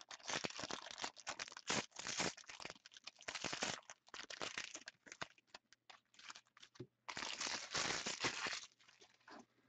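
Wrapper of a trading-card pack crinkling and tearing as the pack is opened by hand, in irregular rustles with short gaps. The loudest stretch comes near the end, then it stops.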